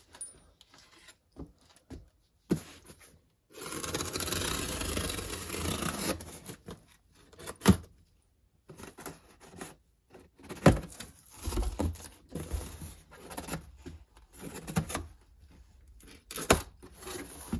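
A parts package being torn open by hand: one long tearing rip lasting a couple of seconds, then scattered knocks and rustles as the contents are handled.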